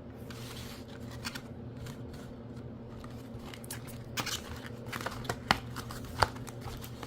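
A card-game deck box and its packaging being handled and opened by hand. After a few quiet seconds come rustling and scraping, with two sharp clicks or snaps about five and a half and six seconds in.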